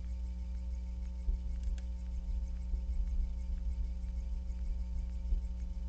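Steady low rumble under a constant hum of several steady tones, with faint scattered ticks.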